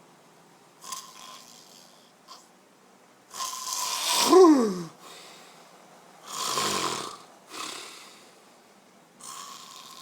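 A man snoring loudly in his sleep: a series of rasping snores, the loudest about four seconds in ending in a snort that drops sharply in pitch, and another strong one about six and a half seconds in.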